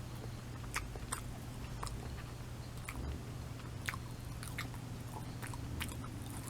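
Close-up mouth sounds of someone biting and chewing a simit, a crisp sesame-crusted Turkish bread ring: scattered short crunches and clicks over a steady low hum.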